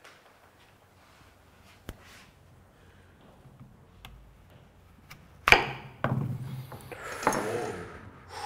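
A knife chopping through an apple in one cut, striking the cutting board with a single sharp knock about five and a half seconds in. About two seconds of clattering and rustling follow as the halves are handled.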